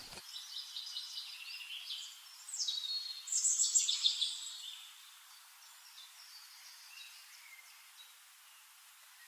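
Songbirds singing: a run of high sweeping chirps and trills, loudest about two to four seconds in, then dying away to a few faint, scattered chirps.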